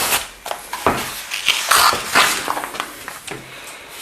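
Paper and cardboard layers inside a Qi charging pad being pulled apart by hand: irregular rustling and scraping, with a sharper knock about a second in.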